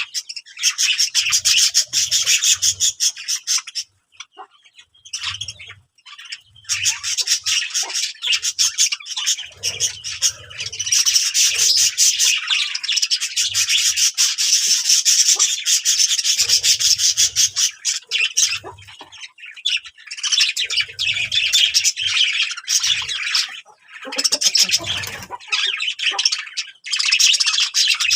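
Birds chirping and chattering in rapid, high-pitched calls with some squawks, almost without pause except a short lull about four seconds in.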